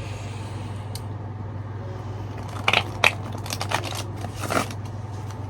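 A deck of tarot cards being handled and shuffled: a single faint snap about a second in, then a flurry of quick card snaps and rustles lasting about two seconds past the middle, over a steady low hum.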